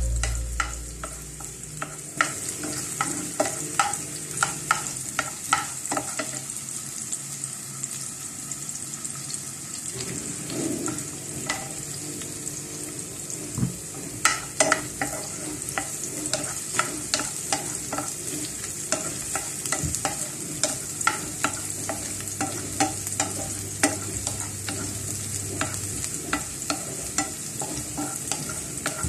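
Chopped onion and garlic frying in a nonstick pan, with a steady sizzle. Frequent short clicks and scrapes come from a wooden spatula stirring them against the pan.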